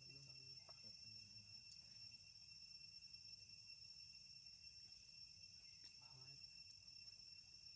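Faint, steady outdoor chorus of insects: a constant high-pitched drone held at two pitches, with no breaks.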